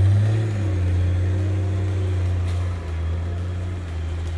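Nissan Patrol 4x4's engine pulling under load as it drives through deep snow. It holds high, steady revs after a quick rise just before, then eases off a little about three seconds in.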